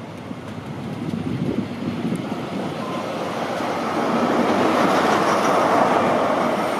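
Class 43 HST power car with an MTU diesel drawing into the platform and passing close by, its engine and wheel noise building to its loudest about five seconds in, then easing slightly.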